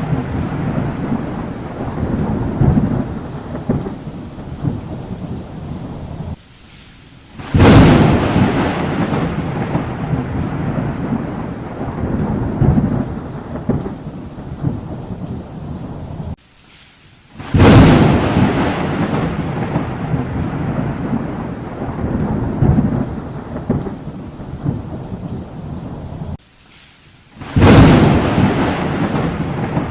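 Thunderstorm: thunder cracks sharply three times, about ten seconds apart, and each crack trails off into a long low rumble over steady rain. Each crack comes just after a sudden brief near-silent drop-out, as if the recording were looped.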